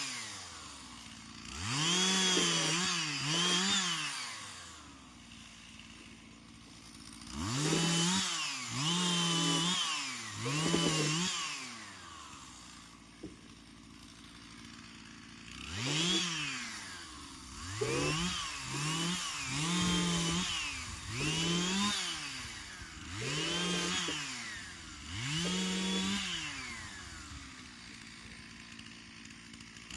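Two-stroke chainsaw revved up again and again in short bursts, its pitch rising and dropping back each time, with spells of running at idle in between.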